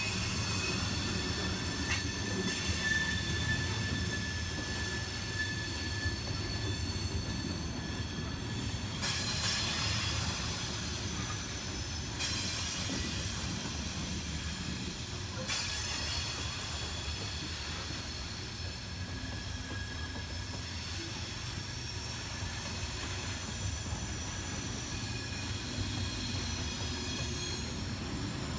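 Loaded coal hopper cars rolling past at close range: a steady rumble of steel wheels on rail, with high-pitched wheel squeal over it.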